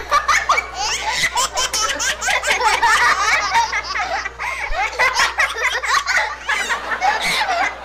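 A woman and a young boy laughing together, their high-pitched laughs overlapping in quick repeated peals.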